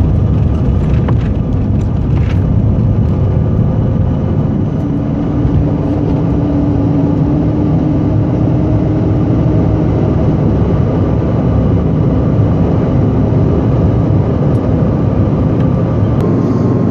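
Jet airliner's engines at takeoff power and the rush of air, heard from inside the cabin as the plane lifts off and climbs. The noise is loud and steady, with a deep low rumble.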